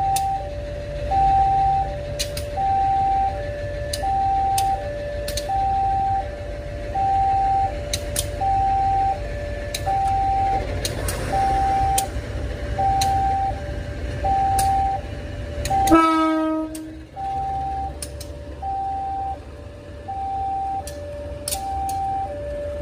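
Level crossing warning alarm sounding a steady two-tone alternation, a higher tone and a lower tone in turn, each lasting under a second. About two-thirds of the way through, a single loud horn blast of about a second cuts in, dipping in pitch as it ends.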